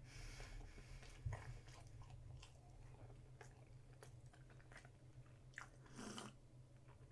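Faint mouth sounds of a man chewing a syrup-soaked peanut butter and jelly sandwich, with scattered small clicks. Near the end comes a brief sip from a cup.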